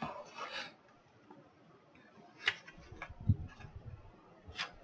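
Quiet handling noises: a few sharp clicks and soft knocks as a folded paper instruction leaflet is picked up and opened.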